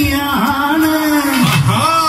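A singer performing a Kerala folk song (nadan pattu), holding and sliding long notes over music with a low beat.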